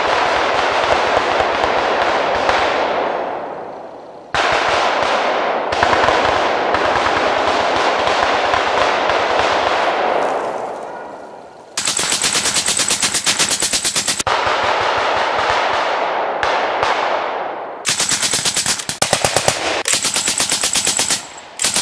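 M60 machine guns firing blanks in long automatic bursts, with the echo dying away between bursts a few seconds in and about ten seconds in. From about twelve seconds the bursts are closer and the separate shots stand out.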